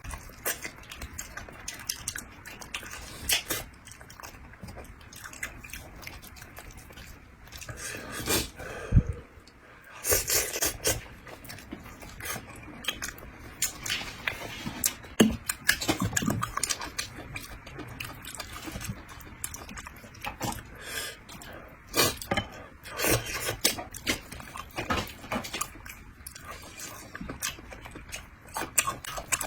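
Close-up eating sounds of a person chewing and sucking on a bighead carp head: a run of irregular smacks and clicks.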